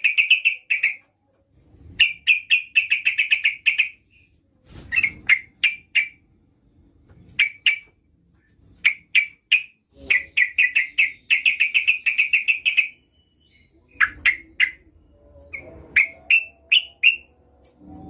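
Female yellow-vented bulbul (trucukan) calling, a lure call for males: about eight bursts of quick, repeated chattering notes with short pauses between them.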